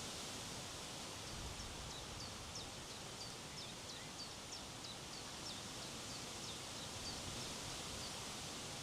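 Steady wind noise blowing across an open hillside overlook. From about a second in until near the end, a small bird calls in a run of short, high, falling chirps, about two or three a second.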